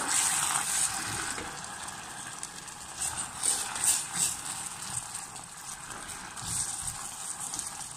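Caramel sizzling and bubbling in a stainless steel saucepan as hot water hits the melted sugar, stirred with a wooden spoon. The hiss is loudest at the start and eases off.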